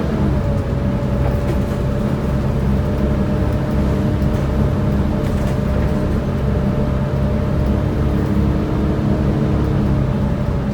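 Volvo B7TL double-decker bus with its hydraulic engine cooling fan running, a steady roar and whine over the diesel engine's hum.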